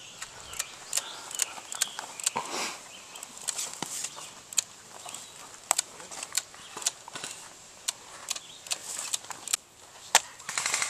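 Airsoft guns firing: scattered sharp single snaps, then a rapid full-auto burst from an electric airsoft rifle near the end.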